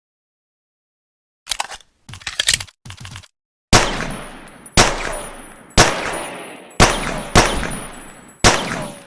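Pocket pistol sound effect: a few short clusters of metallic clicks, then six gunshots roughly a second apart, each followed by a long echoing decay.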